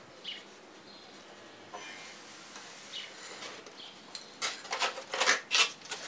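Near quiet for about four seconds, then a quick run of scraping and rubbing strokes as a polystyrene foam cut-out is worked free of the block.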